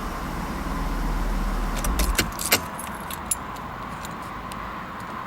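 1991 Mercedes-Benz 300SL's straight-six engine running, then switched off about two seconds in, followed by a series of light clicks and the jingle of keys.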